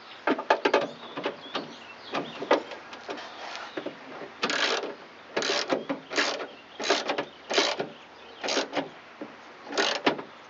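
Box-end wrench tightening a nut on a van's door handle inside the door panel: scattered metal clicks and taps, then a steady run of short rasping strokes, about one every 0.7 s, from about halfway through.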